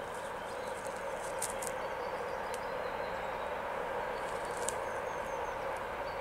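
Distant PKP class SU45 diesel locomotive approaching with a passenger train, its engine a steady drone. Faint high chirps and short clicks sound over it.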